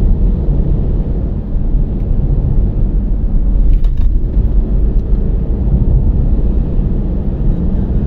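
Steady low rumble of a car's road and engine noise, heard from inside the cabin while driving.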